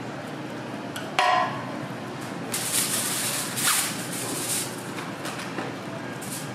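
A sharp metallic clink with a short ring about a second in, then aluminium foil is pulled from a roll and crinkles in several rustling bursts.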